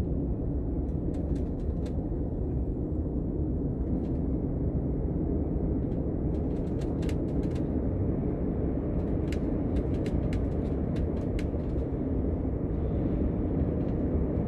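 Steady low rumble of a OUIGO Euroduplex TGV high-speed train running, with scattered faint clicks and ticks.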